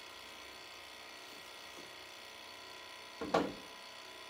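Faint steady whine of running electrical equipment, made of several steady tones like a small motor. A short, louder sound cuts in once about three seconds in.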